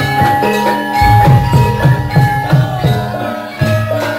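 Javanese gamelan accompaniment for a lengger dance: ringing metallophone tones over quick, repeated hand-drum strokes.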